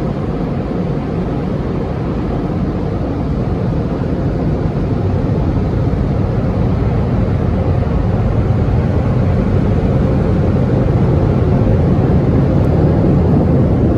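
Steady rushing roar of tunnel car-wash equipment heard from inside the car's cabin. It grows gradually louder as the car nears the dryer blowers.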